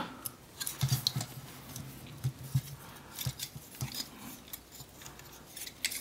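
Irregular small plastic clicks and knocks of a transforming robot action figure as its legs and feet are pulled out, rotated and repositioned by hand.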